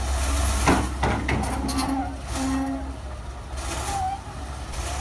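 Caterpillar D9 crawler dozer's diesel engine running with a steady low rumble, with two sharp metallic clanks in the first second and a half.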